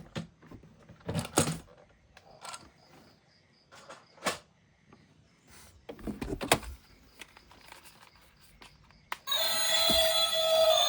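Scattered clicks and knocks from toy vehicles and packaging being handled, with quiet gaps between them. Background music starts again about nine seconds in.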